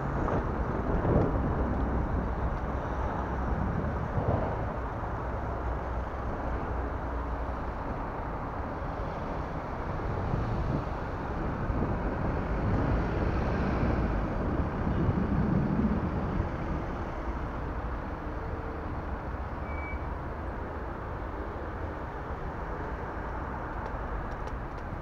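Wind rumbling on the camera microphone, mixed with road and city traffic noise, while riding a recumbent bicycle alongside cars; a steady, unpitched rush that swells a little now and then.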